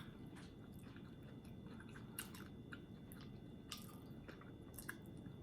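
A person chewing food quietly, with a few short faint clicks from the mouth.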